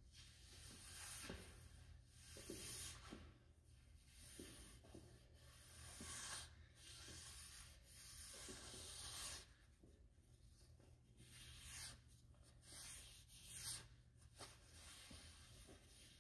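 Hand-held stone rubbed in short strokes along the cast-iron flat way of a Monarch lathe bed, a faint scraping rub repeating irregularly about once a second.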